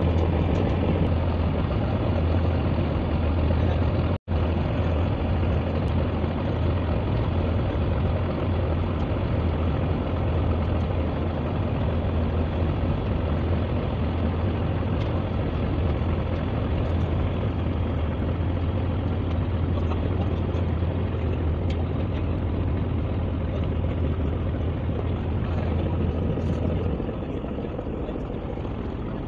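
A boat's engine running steadily, a low hum under a broad rushing noise of wind and water. It cuts out abruptly for an instant about four seconds in, and the low hum drops away near the end.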